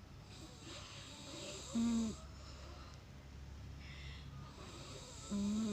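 A sleeping pet snoring: two slow breaths, each a hissing breath that ends in a short, loud, low snore, about three and a half seconds apart.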